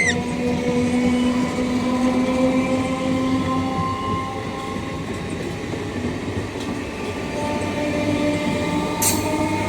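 A train running past: continuous rumble of wheels on the track. Steady droning tones sit over it, a long one for the first few seconds and another from near the end, and a single sharp clank comes about nine seconds in.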